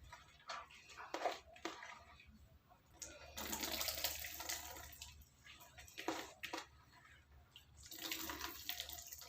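Hands kneading and squeezing crushed bitter gourd leaves in water, giving wet squelching and sloshing. There are scattered short squelches and two longer spells of sloshing, one in the middle and one near the end.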